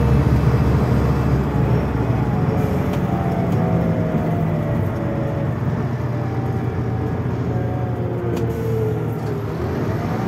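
Scania DC9 five-cylinder diesel engine and drivetrain of a coach running under way: pulling strongly at first, then easing off about a second and a half in, with a whine that falls in pitch several times as the bus slows. A couple of faint clicks.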